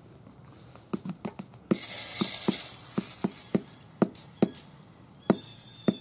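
BLC2 ball rifle powder burning slowly along a metal tray, giving off irregular sharp pops and crackles about one or two a second. There is a brief hissing flare-up about two seconds in.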